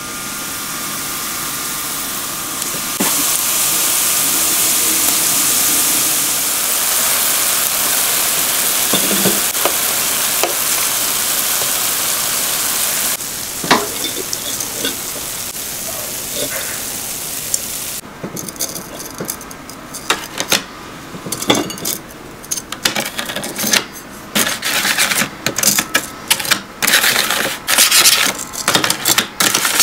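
Churro dough sizzling steadily as it deep-fries in hot oil. Past the middle the sizzle gives way to metal tongs clicking on a wire rack, then to a quick run of short gritty scrapes and rustles as the churros are rolled through granulated sugar in a metal tray.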